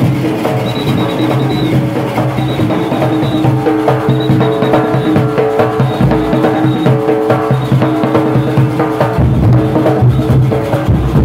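Steel pans played while the band marches, many ringing notes over a steady, even beat of percussion.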